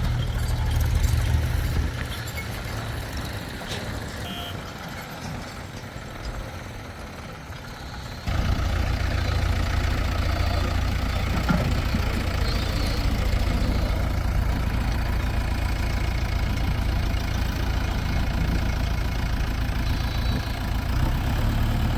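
Heavy diesel machinery engines running at low revs, a steady rumble. About eight seconds in the sound jumps abruptly louder and deeper.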